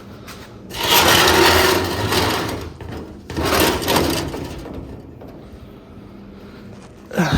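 Ash being scraped out of a homemade fireplace: two long rasping scrapes, then a short clatter near the end.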